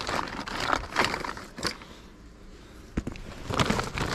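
Rustling and scattered clicks of fishing gear being handled, as when reaching for pliers. It goes quiet briefly, then comes one sharp knock about three seconds in, followed by more rustling.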